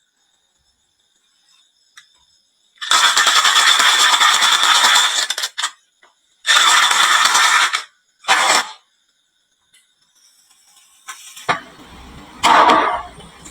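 Marbles clattering down a wooden marble run in bursts: a long rattling run, a shorter one and a brief one. Then a lighter steady rattle starts, with a loud surge near the end.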